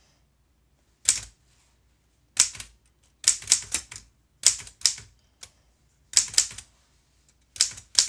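Antique Remington manual typewriter being typed on slowly: about a dozen sharp key clacks, one at a time and in small irregular clusters, with short pauses between them.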